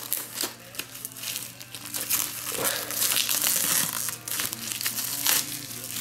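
Plastic shrink-wrap film crinkling and tearing as it is pulled off a Blu-ray Mediabook: scattered crackles at first, then a dense run of rustling from about two seconds in until shortly before the end.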